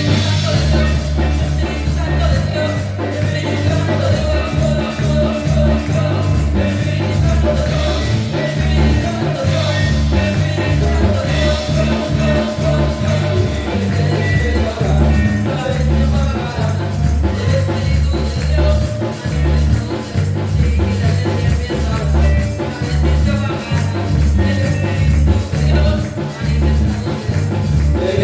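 Worship band playing an upbeat song with a steady driving beat, bass and drums, with some singing.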